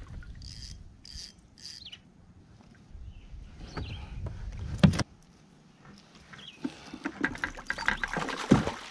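Handling noises of a northern pike being landed in a kayak: scattered knocks and rustles over a low wind rumble. There is one sharp knock just before five seconds in, and more clicks and knocks near the end.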